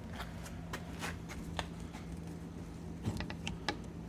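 Scattered light clicks and taps, with a few sharper clicks about three seconds in, over a steady low hum: the newly fitted wing-window lock and vent window of a Volkswagen Beetle door being worked by hand.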